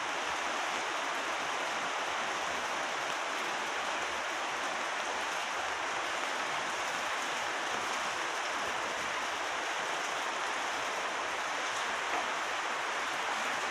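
Steady rain falling, an even hiss without let-up.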